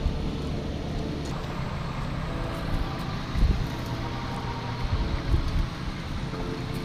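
Four-wheel-drive vehicle's engine running steadily at low speed, crawling over a rough, rutted dirt track, with the body jolting and knocking over bumps. The loudest jolt comes about three and a half seconds in.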